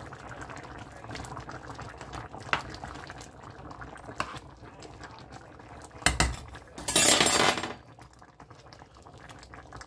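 Black-eyed pea stew bubbling at a simmer in a nonstick pan while a spoon stirs it, with a few light clicks of the spoon against the pan. About six seconds in there is a thump, followed by a louder noisy burst lasting under a second.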